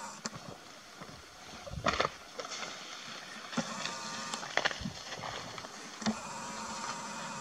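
A handful of sharp gunshots fired at a wild boar running across a hillside, spaced a second or two apart, the strongest about two seconds in.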